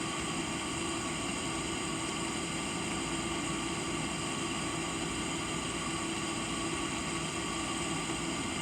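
Steady mechanical hum and hiss with several fixed tones, unchanging throughout.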